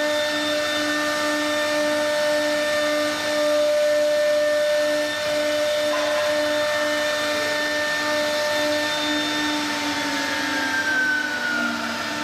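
Spindles of a three-spindle wood carving CNC router running with a steady, multi-toned whine. Near the end one tone falls in pitch.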